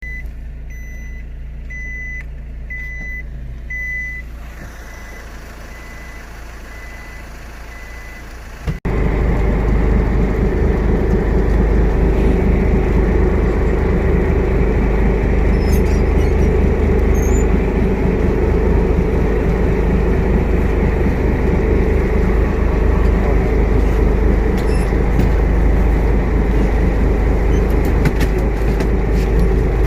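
A steady engine rumble. For the first few seconds it is quieter, with a high electronic beep about once a second. After a sudden cut it becomes a much louder, steady engine drone with a rushing noise.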